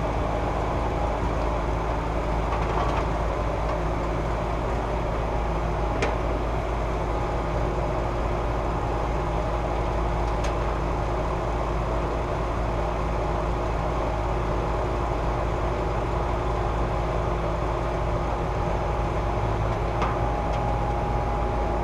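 Rooftop air conditioner's condensing unit running steadily, its compressor and condenser fan humming evenly now that it starts with a newly fitted hard start kit and cools properly. A few faint clicks are scattered through.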